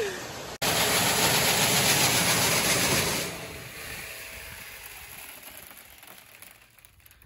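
Grain auger running loudly with soybeans pouring through it, a dense rushing mechanical noise that comes in abruptly and then dies away gradually over the last four seconds.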